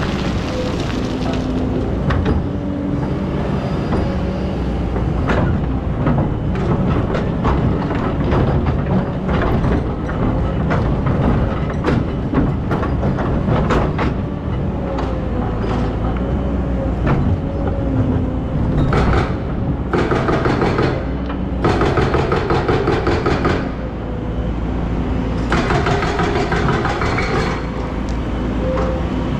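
Excavator's diesel engine running with a wavering hydraulic whine, over a steady stream of clanks and knocks as the bucket works sand and stones. Longer bursts of rattling, scraping noise come about two-thirds through and again near the end.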